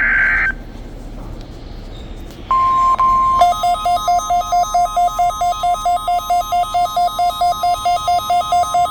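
A short screech of digital alert data cuts off, followed by a couple of seconds of radio hiss. About two and a half seconds in, NOAA Weather Radio's steady 1050 Hz warning alarm tone begins. From about three and a half seconds, rapid electronic beeping, about five beeps a second, sounds over the tone.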